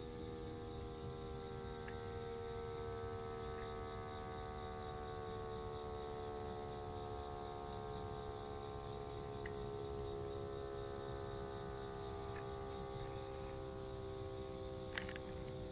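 Electric motor siren sounding a time signal, a steady droning chord of several tones whose pitch slides slowly lower as the rotor winds down.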